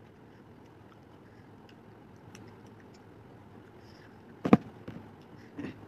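Faint small clicks, then a single loud, sharp hand clap about four and a half seconds in, followed by a couple of softer knocks.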